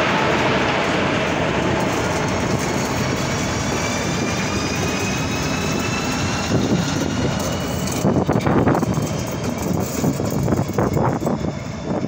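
Two class 155 electric locomotives running past at low speed, a steady rumble with a faint rising whine. In the second half come a series of knocks as the wheels run over the rail joints.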